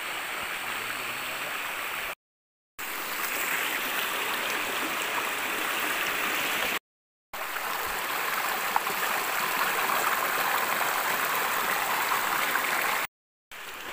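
Steady rushing of a shallow stream's running water, cutting out completely three times for half a second or so.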